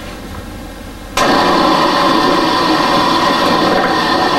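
Food processor switched on about a second in, its metal blade spinning at high speed with a steady motor sound as it mixes flour and boiling water into a stiff dough.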